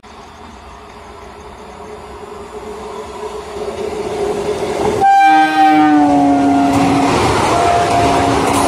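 Indian Railways EMU electric local train approaching, its running noise swelling steadily. About five seconds in it sounds its horn in a long blast that dips slightly in pitch for about two seconds, then gives a second, shorter blast as the train runs past on the rails.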